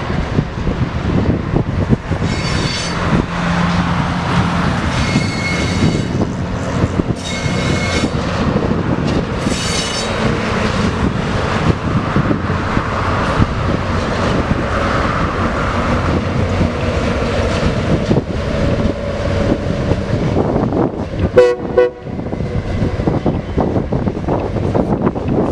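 Tasrail TR class diesel locomotives hauling a train past, with engine rumble and wheel noise throughout. The horn sounds in four short toots in the first ten seconds. A brief, louder pitched burst comes a little after twenty seconds.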